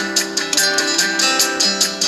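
LG V20 alarm tone: a bright plucked-string tune strummed in quick, even strokes, several a second.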